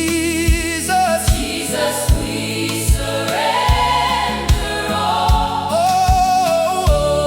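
Gospel worship music: voices singing long held notes, some with vibrato, over a steady kick-drum beat about every 0.8 seconds.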